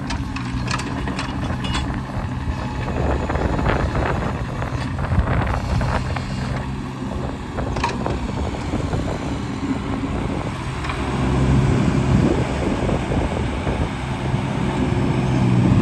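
Yanmar diesel engine of a John Deere 17D mini excavator running steadily, with scattered knocks from the machine during the first half. About eleven seconds in the engine grows louder.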